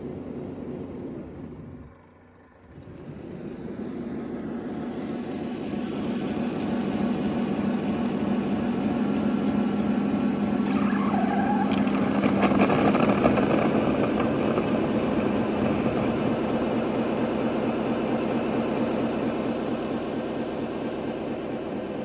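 Narwal Freo robot mop's base station washing the mop pads: a steady mechanical whir with a low hum. It stops briefly about two seconds in, then starts again and builds up, loudest around the middle and easing slightly near the end.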